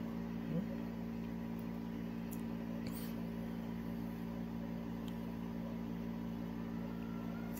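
Steady low hum made of several even tones, like a running household appliance, with one faint click about three seconds in.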